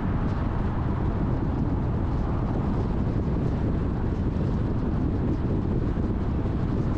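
Steady road and wind noise from a car driving, a low, even rumble with no engine note standing out.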